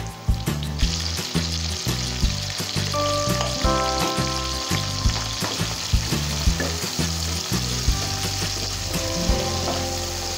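Sliced onions, chopped tomato, garlic and dried red chillies sizzling in hot oil in a pan, with a spatula stirring and scraping against the pan. The sizzle grows louder about a second in and stays steady.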